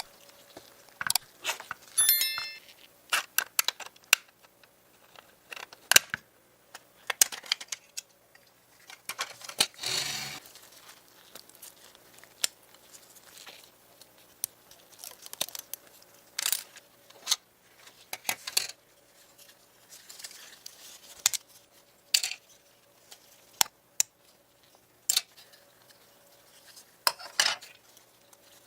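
Close handling of a toy model race car and its small metal and plastic parts: scattered clicks, taps and light clatters, with a brief scraping rasp about ten seconds in.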